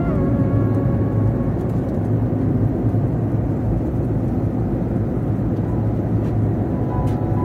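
Steady low rumble of a vehicle in motion, heard from inside the cabin. Background music fades out in the first second or so, and faint music returns near the end.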